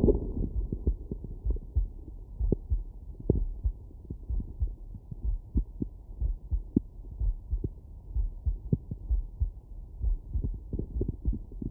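Heartbeat heard through a stethoscope: a steady, regular run of short low thumps.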